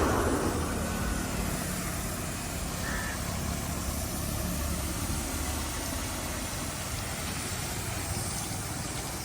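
A heavy diesel engine running steadily at low revs.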